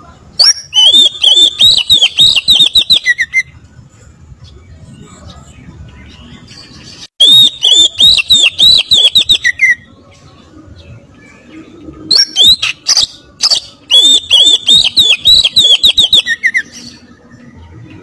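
Oriental magpie-robin (kacer) singing three loud bouts of its fast rolled song, the 'roll tembak' of birdkeepers: rapid runs of repeated high whistled notes, about four or five a second, mixed with sharp clicking notes. Each bout ends on a lower note.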